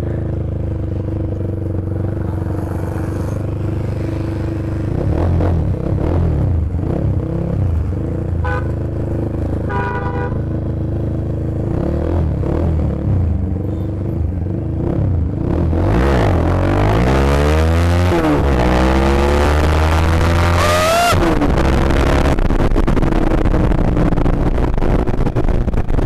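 Motorcycle engine running under way, with a vehicle horn tooting twice briefly about eight and ten seconds in. From about sixteen seconds the engine revs up through the gears in repeated rising sweeps, with wind rush growing on the microphone.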